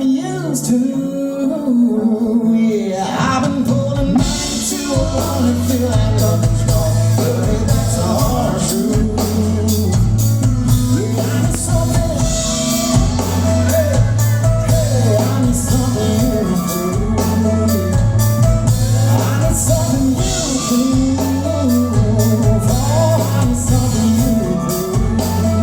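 Live country-rock band playing through a PA: singing over electric guitar, bass and drums, with the full band coming in about four seconds in.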